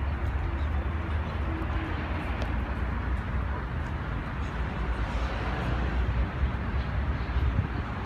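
Steady city street noise from passing traffic, with a constant low rumble underneath.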